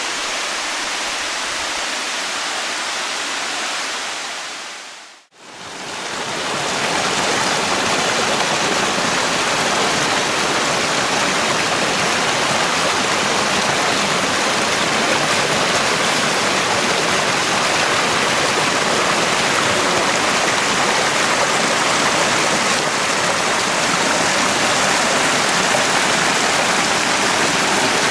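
Water rushing and splashing over rocks in a small spring-fed mountain stream and cascade, a steady hiss. It fades out briefly about five seconds in and returns a little louder.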